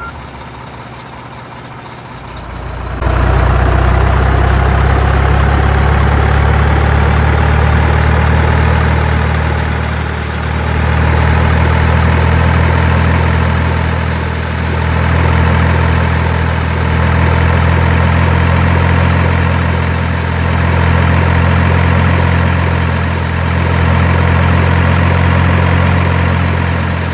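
Heavy vehicle engine idling: a steady low rumble that starts about three seconds in and swells and eases gently every few seconds.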